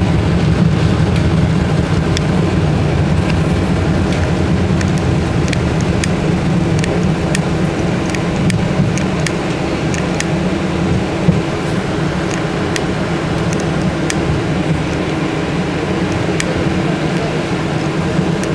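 Running noise heard from inside a BKM 84300M (AKSM-843) low-floor tram in motion: a steady low hum and rumble of the wheels and drive, with scattered light ticks and rattles.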